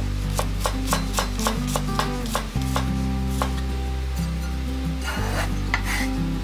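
Chef's knife chopping garlic on a cutting board: quick taps of the blade on the board, about three or four a second for roughly three seconds. A short scrape follows near the end, with a couple more taps.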